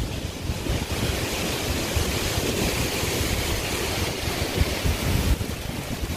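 Hurricane wind blowing hard and buffeting the microphone, a steady rushing noise with low rumbling gusts that swell strongest near the end.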